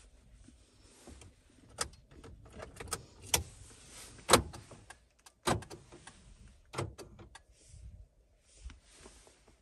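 A series of sharp knocks and clicks at irregular intervals over low rustling, about six in all, the loudest a little past the middle.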